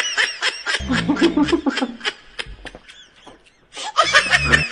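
Laughter in quick repeated bursts, with a man's low snore rumbling twice, about a second in and again near the end.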